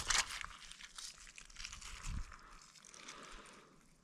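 Handling sounds of a small crucian carp being unhooked by hand over pebbles: rustling and small clicks, loudest at the start and fading, with a soft thump about two seconds in.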